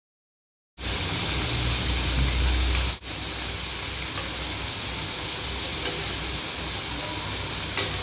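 Hot oil sizzling steadily as spirals of moong dal dough deep-fry in a kadai. It starts after a second of silence, with a brief drop about three seconds in.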